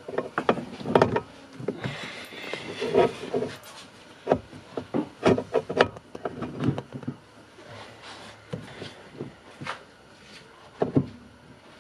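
Fiat 500 steering column shaft being worked and wiggled into place in the footwell: scattered clicks and knocks of metal parts meeting, with rubbing in between.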